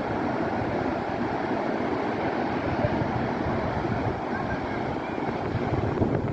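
Ocean surf breaking on a beach: a steady wash of waves, with wind on the microphone.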